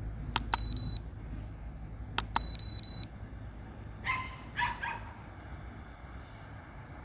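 Two bursts of high electronic beeping, each set off by a click: the second burst is broken into short beeps and is the loudest thing heard. About four seconds in, a dog barks two or three times over a low background rumble.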